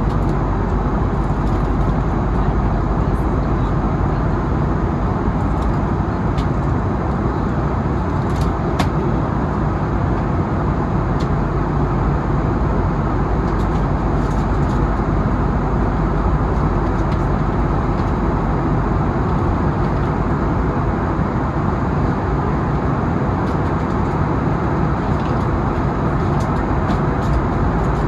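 Steady jet engine and airflow noise heard inside the cabin of an Airbus A320neo-family airliner, a constant low noise that holds level throughout.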